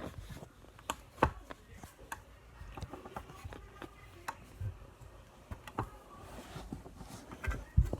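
Irregular clicks and knocks of small objects being handled, a dozen or so sharp taps at uneven spacing.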